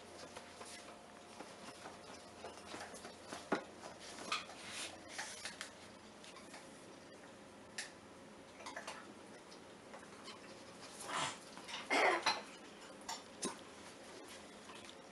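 A small puppy's claws clicking and scrabbling on a tile floor as it tussles with a fleece dog bed. The sounds come in scattered bursts, and the loudest scuffle is about twelve seconds in.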